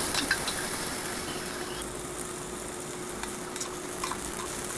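Chopped onion sizzling gently in oil in a nonstick kadai over low heat, with scattered light taps and scrapes of a spatula stirring it.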